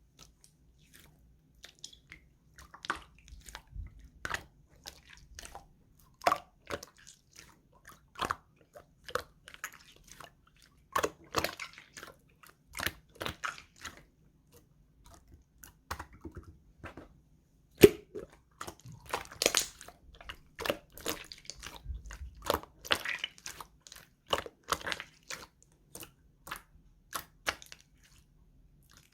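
Clear slime being pressed and worked by hand, giving irregular sticky clicks and crackles, some single and some in quick clusters.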